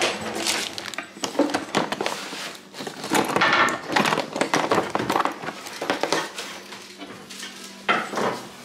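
Rummaging through a cluttered kitchen drawer: plastic bags and wrap crinkling, with clicks and knocks of small items being moved. The rustling comes in bursts, loudest a few seconds in.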